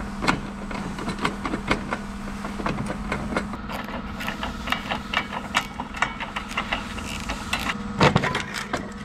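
Hand tools clicking and tapping on rusty steel fasteners and brackets as the headlight mounting hardware is worked loose, irregular clicks that come thicker in the middle and a louder knock near the end, over a steady low hum.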